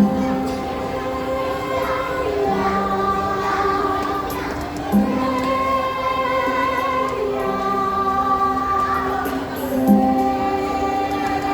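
Choir singing slow, held chords in harmony, the chords changing every few seconds.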